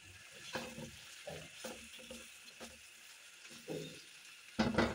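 Blue silicone spatula stirring spiced vegetables in a black nonstick wok, a run of short soft scraping strokes over a faint sizzle, with one louder stroke near the end.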